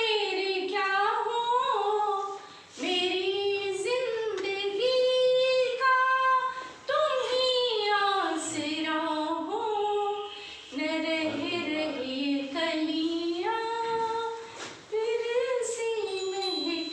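A high voice singing an unaccompanied melody in phrases of a few seconds, with short breaks between them.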